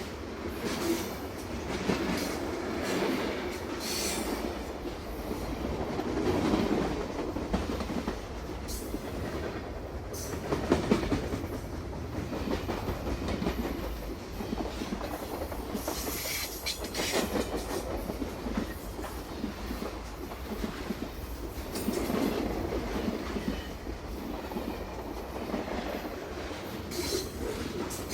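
Train running along the rails: a continuous rumble with repeated wheel clacks.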